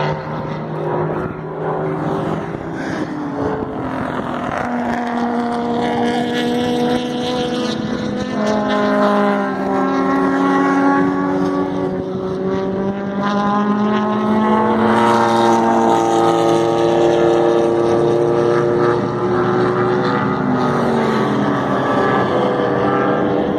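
Engines of several vintage race cars running at speed on the circuit, overlapping. Their notes rise under acceleration and drop at each upshift.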